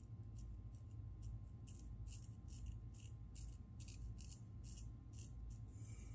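Parker adjustable shavette razor scraping through lathered stubble on the upper lip in short, quick strokes, about three a second.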